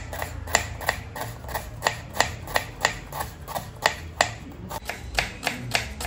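Kitchen knife slicing small red onions on a wooden cutting board: the blade knocks against the board about three times a second, with a short pause a little past four seconds in.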